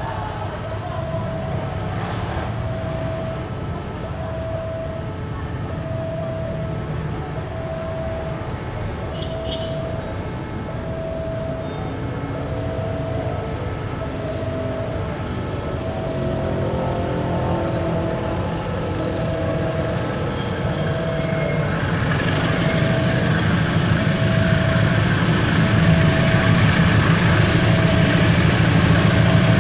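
GE diesel-electric locomotive running as it slowly approaches hauling a freight train, its engine rumble and wheel noise growing louder in the last several seconds. A level-crossing alarm beeps steadily, about once every second and a half to two seconds.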